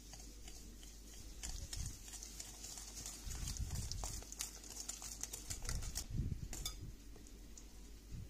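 Wire whisk beating eggs and sugar in a glass bowl: quick, irregular clicks and taps of the wires against the glass, with some soft low thumps, starting about a second in and stopping near the end.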